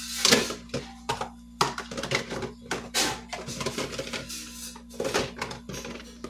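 Small plastic food containers knocking and clicking against each other as they are handled and stacked at a kitchen sink: a string of light, irregular knocks, over a steady low hum.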